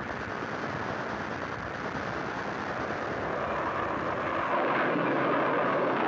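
Cartoon sound effect of an alien spaceship taking off: a rushing noise that grows slowly louder and brighter, loudest near the end.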